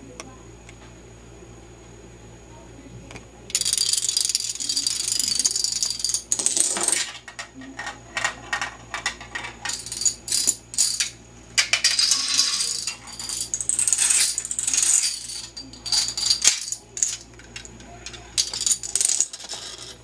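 A long chain of small dominoes toppling in sequence: a rapid, continuous clatter of clicks that starts about three and a half seconds in and runs on in stretches with brief pauses.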